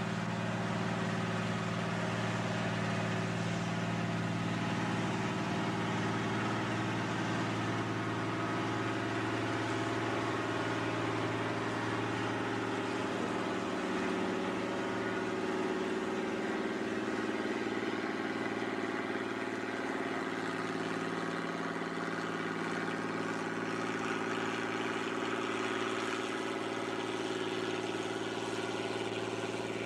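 Cummins 220 diesel engine of a four-axle truck-mounted Lima Model 65-T shovel running steadily at low revs as the rig creeps along.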